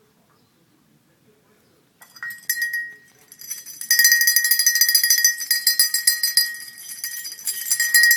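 Dog recall bell rung in rapid, continuous strikes with one steady ringing pitch, starting with a few strokes about two seconds in and shaken hard from about four seconds on: the signal that calls the dog to come.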